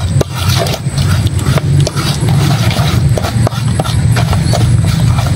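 Knife blade clinking and scraping against a stainless steel bowl as sambal is stirred, in scattered sharp clicks, over a loud steady low rumble.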